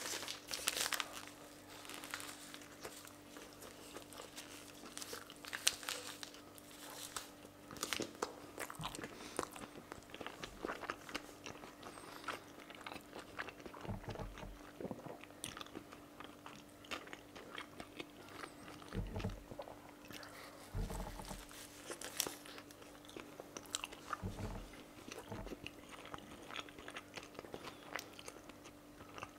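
Close-up biting and chewing of a large chicken shawarma wrap, with many small scattered crunches and crackles over a faint steady hum.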